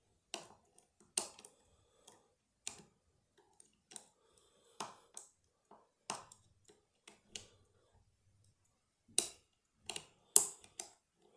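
Sharp metal clicks at irregular intervals, about a dozen, from a wire pick and tension tool working the levers inside a lever challenge lock.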